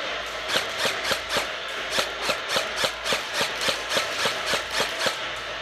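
Running footsteps, a steady series of sharp thuds about three a second with a short break a little over a second in.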